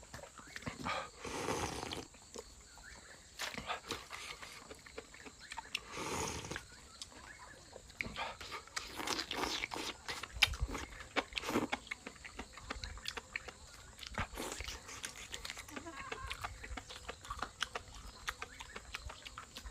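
Close-up sound of a person eating chicken: wet chewing and lip smacking with many small clicks, and twice a longer noisy swell such as a slurp or breath.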